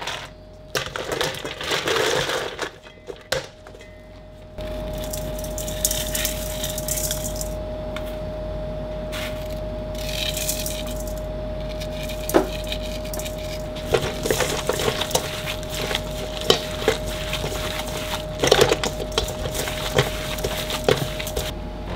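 Ice cubes clattering against a stainless steel bowl as a gloved hand stirs them. After a cut, a steady kitchen hum runs under irregular clicks, scrapes and knocks as ground pork is mixed by hand in a steel bowl nested over the ice bowl, the knocks thickest in the second half.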